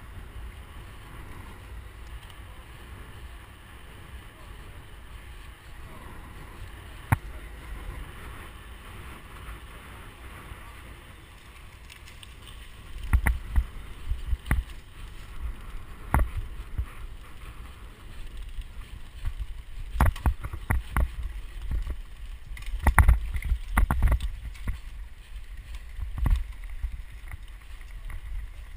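Wind rumbling on the microphone of a camera riding along on a bicycle, over steady tyre noise. From about 13 seconds in come irregular knocks and rattles as the bike runs over a rough dirt trail.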